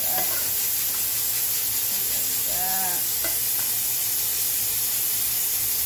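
Yellow rice with sausage sizzling in a hot metal pan as it is stirred with a spoon: a loud, steady hiss.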